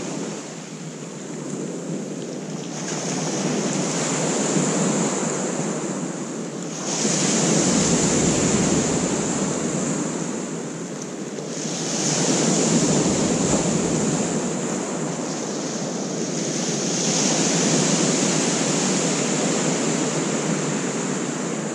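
Surf breaking and washing over a shingle beach, swelling about every five seconds, with wind buffeting the microphone now and then.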